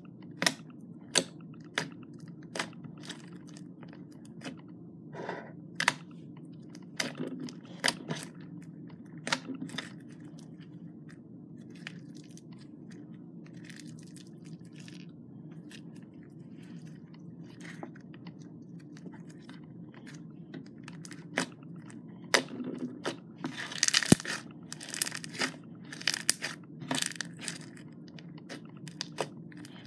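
Bead-filled crackle slime being pressed and kneaded by hand, giving sharp crunching crackles and pops. They come in scattered clusters for the first ten seconds, grow sparse while the slime is stretched, and crowd together near the end.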